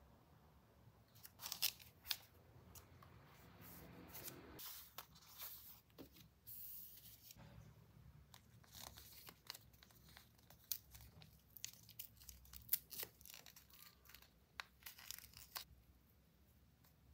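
A screen-protector cleaning-wipe sachet being torn open and handled, with crinkling packaging and many small sharp crackles and clicks.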